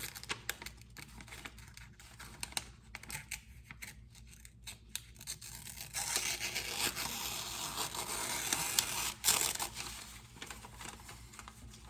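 Freshly sharpened knife slicing a sheet of paper as a test of the edge. Light rustling of the paper at first, then a steadier slicing hiss from about six seconds in for three to four seconds.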